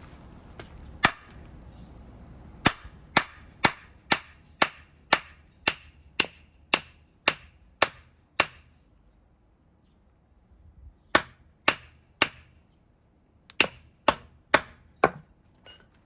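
A tool striking wood with sharp blows: one, then a run of about a dozen at roughly two a second, then three more and four more after short pauses. Insects chirr steadily behind.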